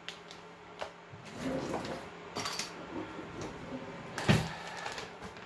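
Brewing gear being handled at the stove: a few light clicks and rustles, then one sharp knock about four seconds in.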